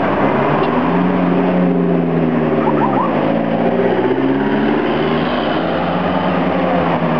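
Motor vehicle engine running, its pitch dropping about three seconds in, as at a gear change, then climbing again.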